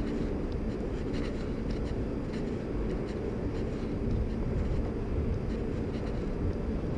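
Steady low rumble of wind and handling noise on a body-worn action camera's microphone while walking, with faint scattered ticks.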